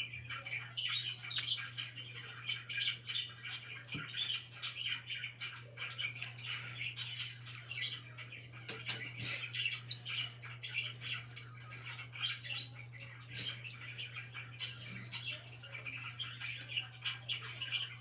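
Budgerigars chirping and chattering, a dense unbroken stream of short high chirps and warbles.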